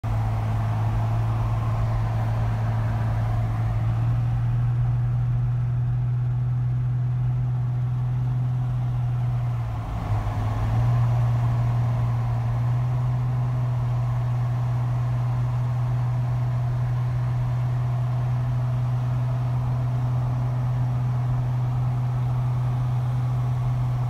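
Steady low drone of a car travelling at road speed, heard from inside the cabin: road and engine noise. It dips briefly about ten seconds in and then carries on.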